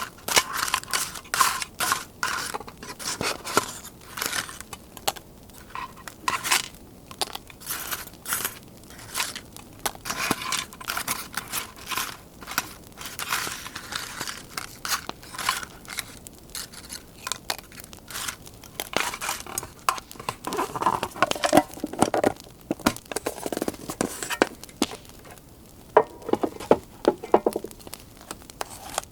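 Paper being handled, crinkled and scraped, over a steady crackle of a campfire. The paper handling grows heavier about twenty seconds in.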